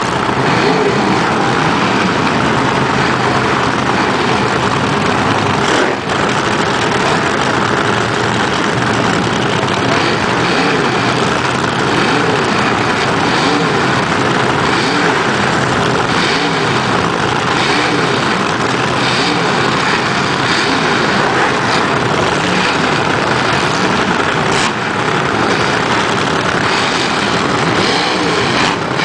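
Vintage front-engine nitro dragster engines cackling at a loud idle, their revs rising and falling now and then.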